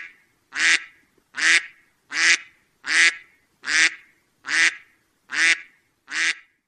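A duck quacking loudly in a steady, even series of nine alike quacks, about one every three-quarters of a second.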